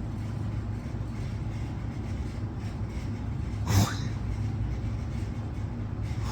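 One short nasal cough about two-thirds of the way through, over a steady low hum.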